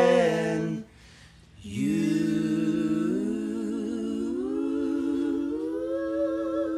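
An unaccompanied voice sings the tail of a line, breaks off under a second in, then after a short pause hums one long held note that wavers and steps up a little in pitch.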